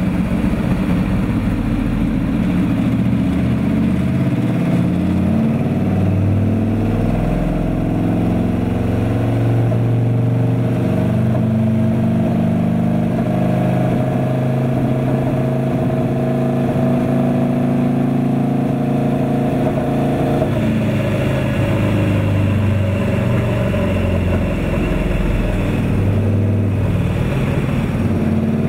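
Turbocharged Harley-Davidson V-Rod V-twin running under load on a chassis dyno. Its pitch creeps slowly up, then drops suddenly about twenty seconds in.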